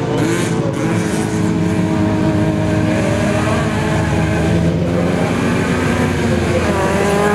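Autocross race car engines running hard and continuously, their pitch sliding down and rising again as the throttle is worked.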